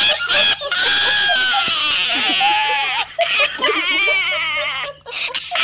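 A dog crying out in pain after a duckling's bite to its leg: two long, wavering high whines, the first about two seconds long and the second following just after it.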